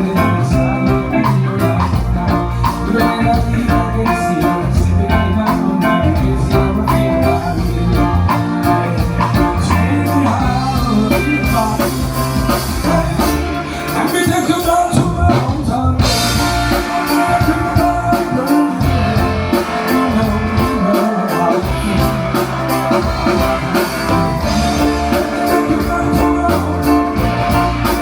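Live band music with electric guitar, bass guitar and drums, with some singing.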